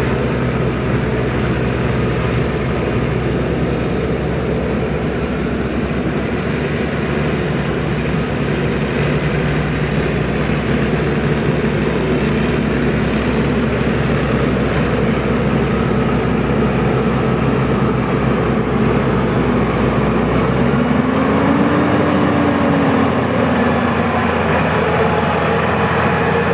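Massey Ferguson 7620 tractor's six-cylinder diesel engine running steadily under load while pulling a five-furrow plough. Near the end the deepest rumble drops away and the engine note briefly rises and falls.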